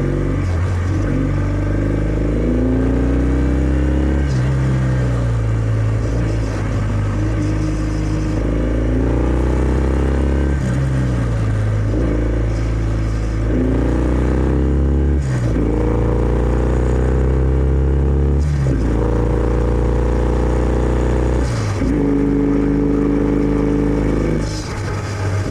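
Kawasaki W650's air-cooled parallel-twin engine through its stock exhaust, running under way. The revs climb and drop back several times with gear changes, then hold steady in longer stretches.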